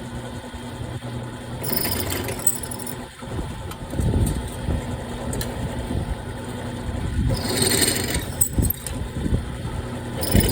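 Electric drill running and boring holes through steel windmill parts, with a steady motor hum and two louder stretches where the bit cuts, about two seconds in and again near eight seconds.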